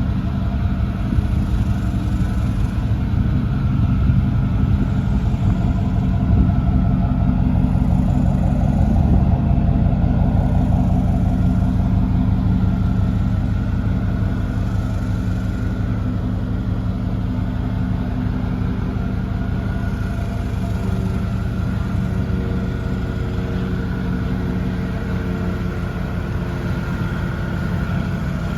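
Factory 350 small-block V8 of a 1990 Chevrolet truck idling through a Flowmaster Super 10 exhaust, a steady low exhaust note.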